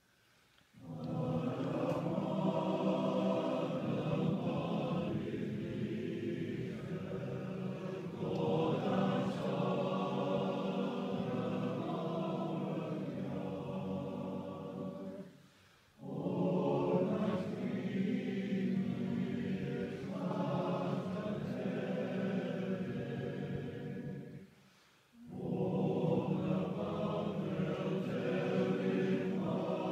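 A choir singing slow, held phrases, with short pauses between phrases about halfway through and again near the end.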